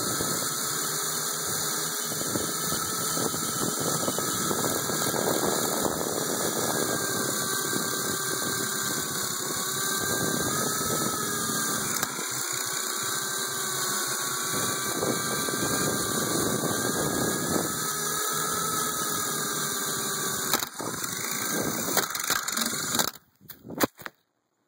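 Small electric RC helicopter's motor and rotor whining steadily over a rushing noise, the pitch wavering up and down with the throttle. Near the end come a few sharp knocks and the sound cuts off suddenly.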